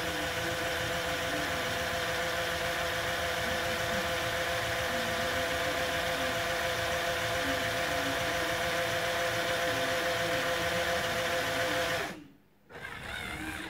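Electric motor and gear train of a Mould King 13106 remote-controlled toy forklift, running steadily as a whir with a fixed pitch while the toothed-rack mast lowers. It stops abruptly about 12 seconds in, then runs again briefly near the end.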